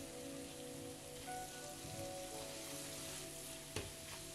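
Spice paste frying gently in oil and melting butter in a nonstick frying pan, a faint steady sizzle as it is stirred with a wooden spoon, with one light knock near the end.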